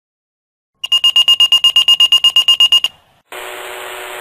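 Motorola Minitor fire pager sounding its alert: a loud, rapid high-pitched beeping, about ten beeps a second for two seconds. After a short pause, a steady radio hiss comes on as the channel opens for the dispatch message.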